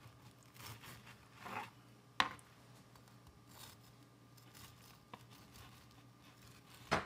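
Knife sawing through slices of toasted potato wheat bread on a plastic cutting board: a few faint rasping strokes through the crust, with a sharp tap of the blade on the board about two seconds in.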